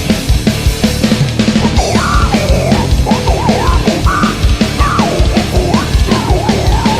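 Heavy metal band playing live: fast, even kick-drum beats under distorted guitars, with a wavering, bending high line entering about two seconds in.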